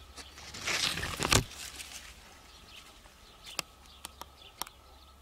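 Quiet outdoor ambience with a brief rush of rustling noise about a second in, then three faint clicks and faint bird chirps.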